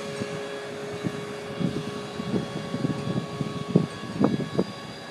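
A steady machine hum holding a few even tones, with irregular soft thumps and scuffs of footsteps and handling noise on top as the camera is carried along the car.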